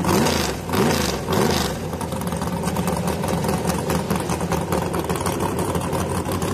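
Drag-racing pickup truck's engine blipped three times in quick succession, each rev rising and falling in pitch, then idling steadily.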